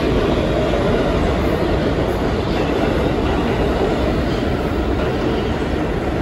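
New York City subway train rolling into an underground station: a loud, steady rumble and rattle of steel wheels on the rails.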